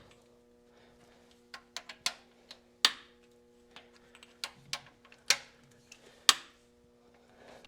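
Scattered sharp clicks and clinks of hand tools working the engine's cylinder head bolts loose, about a dozen at irregular spacing. A faint steady hum runs underneath.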